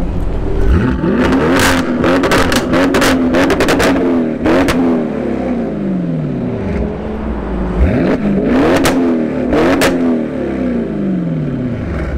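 Audi RS6 C7's twin-turbo V8 with an Akrapovic exhaust revved twice in quick blips, the pitch climbing and falling back each time. Each rev brings a burst of sharp crackles and pops from the exhaust.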